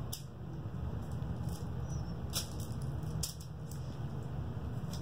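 Steady low room hum with a few light clicks and taps.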